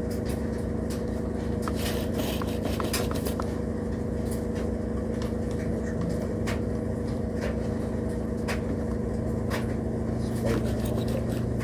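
Steady electrical hum with scattered irregular clicks from a powered HO-scale model train setup. The Santa Fe locomotive on the track fails to run.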